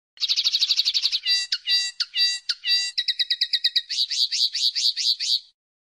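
Common linnet singing one high-pitched song phrase: a fast trill, then a few separate notes that sweep downward, then two more quick runs of repeated notes, stopping about half a second before the end.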